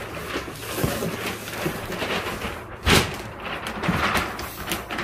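Rustling and scraping of things being handled, with one loud knock about three seconds in.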